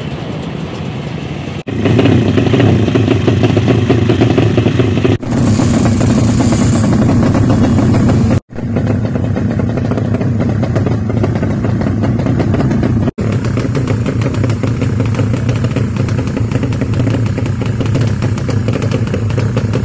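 Loud engines of modified Yamaha Jupiter underbone racing motorcycles running hard, with the sound dropping out for an instant several times where clips are joined.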